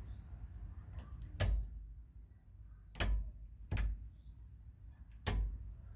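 Four short, sharp clicks and knocks of metal parts being handled inside an opened steering column, spaced a second or so apart.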